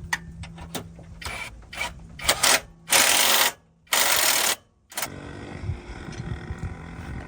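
Workshop tool noise: several clicks and short hisses over a steady low hum, then two loud hissing blasts of about half a second each, a second apart.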